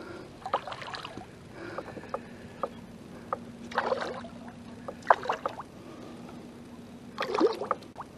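Water splashing and sloshing around a fishing kayak while a rockfish is reeled in. There are three short splashy bursts, scattered light clicks and knocks from gear on the hull, and a faint steady hum underneath for most of the time.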